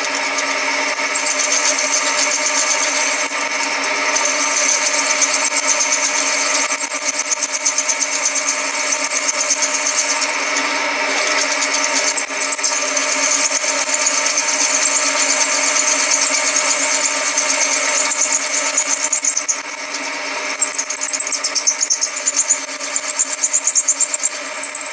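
Drilling machine running with a twist drill cutting into an aluminium casting, drilling out the old damaged threads to size for a helicoil insert: a steady motor hum under a high, scratchy cutting noise.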